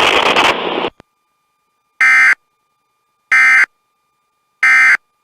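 Three short bursts of NOAA Weather Radio SAME digital data tones, each under half a second and evenly spaced about a second and a quarter apart. They are the end-of-message code that closes the weekly test broadcast.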